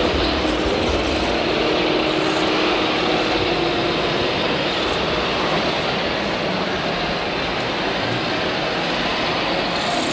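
Radio-controlled model vehicles running, a steady mechanical whirr with a constant hiss.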